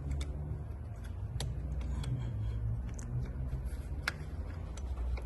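A handful of sharp, light clicks and ticks from tools and parts being handled, spaced a second or more apart, over a steady low hum.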